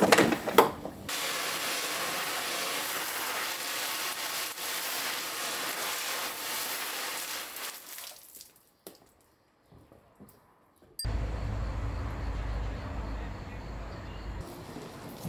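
A few knocks, then a garden hose spraying water onto plants: a steady hiss that fades out about eight seconds in. After a short quiet gap, a low rumble comes in for about three seconds.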